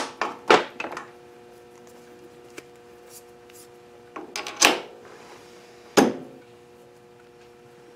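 Hard clunks and knocks of metal tools being handled at a lathe: about five separate sharp knocks spread out, the loudest two near the middle and about three-quarters through, over a faint steady hum.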